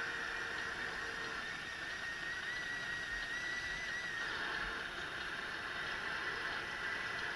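Steady high whine of a radio-controlled model truck's electric drive, with a thin whistling tone joining it for a second or two about halfway through.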